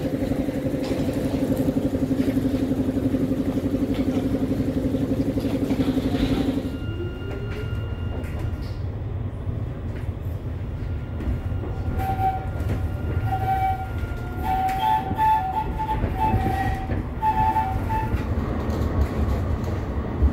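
Electric tram: first a steady electrical hum while it stands at the platform. About a third of the way in the sound switches to inside the cabin, with the low rumble of the tram running. A brief rising whine follows, then thin steady high tones and, in the second half, short pulsing tones at two pitches.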